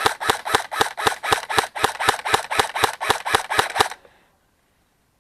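Airsoft gun firing a rapid string of evenly spaced shots, about six or seven a second, that stops about four seconds in.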